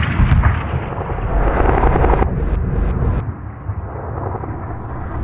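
Cinematic logo sound effect: a deep explosion-like boom followed by a continuous low rumble, with a few sharp cracks scattered through it.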